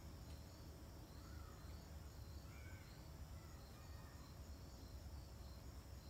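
Near silence: faint outdoor ambience with a steady low rumble, faint repeated high chirping and a few faint bird chirps.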